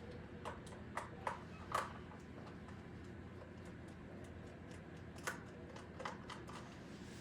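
Scattered light clicks and taps of a screwdriver and hands working screws out of the back of a stand fan's motor housing. A few sharper clicks come in the first two seconds and another about five seconds in.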